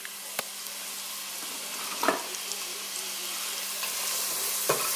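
Chopped onions and minced garlic sizzling in a nonstick pot, a steady hiss that grows a little louder. A wooden spoon stirs them and knocks against the pot a few times.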